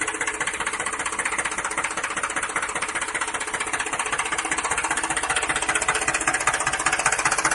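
Small DC motor of a homemade toy tractor model running with a fast, even, rattling buzz.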